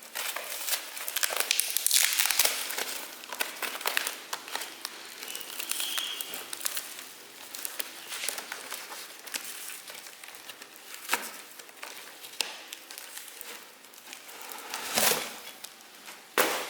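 Packaging crinkling and crackling as it is handled and pulled off, with a few knocks near the end.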